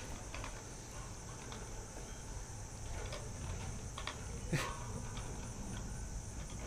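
Faint steady insect chirring, one unbroken high-pitched drone over a low rumble, with a few faint clicks.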